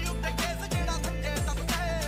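Background music: a beat with deep bass hits that slide down in pitch, under a wavering lead melody.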